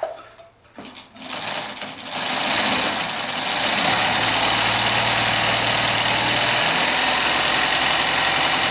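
Chaika-2 sewing machine run at speed, building up about a second in and then running steadily and noisily. The noise comes from a newly fitted metal half-gear, which replaced a cracked nylon one, still bedding in against its mating gear before its position is adjusted; a sound that is "not great" for now.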